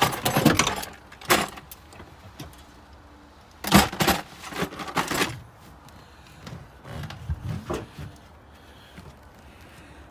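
Plastic interior trim and clips being handled and pressed into place: rustling, scraping and clicking in bursts, loudest at the very start and again about four to five seconds in, with a smaller run around seven to eight seconds.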